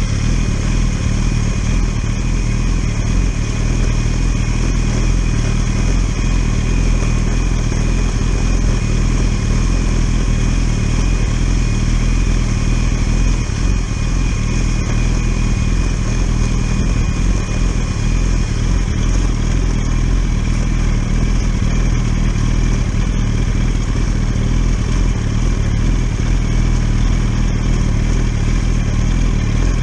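Litre-class sport motorcycle engine running at a steady pace while the bike is ridden.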